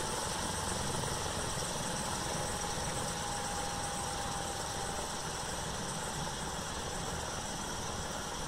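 MBB Bo 105 helicopter running on the ground with its four-blade main rotor turning, driven by twin Allison 250 turboshaft engines. A steady turbine whine is heard over rotor and exhaust noise, drifting slightly lower in pitch and easing a little in level.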